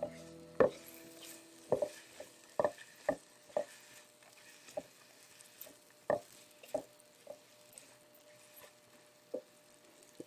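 Silicone spatula knocking and scraping against a nonstick frying pan while stirring chopped garlic: a dozen or so irregular knocks, the loudest about half a second in.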